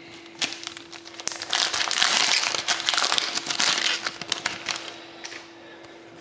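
The foil wrapper of a hockey card pack being torn open and crinkled by hand. A few light crackles come first, then a dense, loud crinkling from about a second and a half in that dies down after about four seconds.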